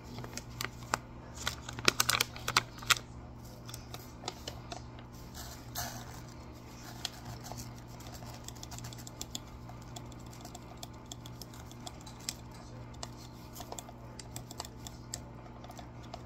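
Scattered light clicks and taps from handling the coffee things while ground coffee is put into a coffee maker, with a busy cluster about two seconds in, over a steady low hum.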